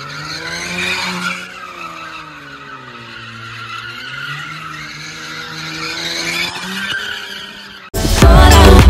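Car engine held at high revs, its pitch wavering slowly up and down while it drifts, with tyre noise under it. Loud electronic music cuts in abruptly near the end.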